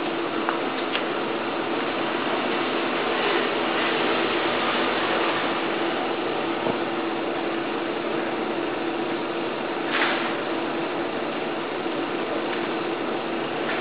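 Steady hum of an air blower with rushing air, forcing draught into a charcoal-fired mini pottery kiln running at firing heat. A brief sharp rush about ten seconds in, and a few faint ticks.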